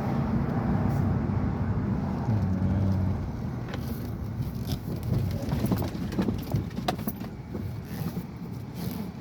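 2005 Dodge Durango's 5.7 Hemi V8 running on the road, heard from inside the cabin as a steady low rumble with road noise, with no misfire ticking now that the spark plugs are new. Light clicks and jingles, like keys, in the second half.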